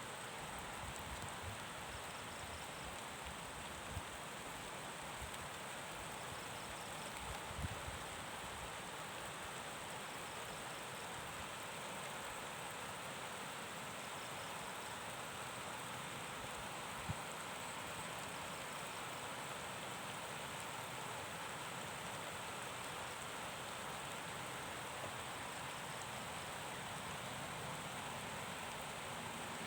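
Steady rain falling, an even continuous hiss, with a few soft low knocks about 4, 8 and 17 seconds in.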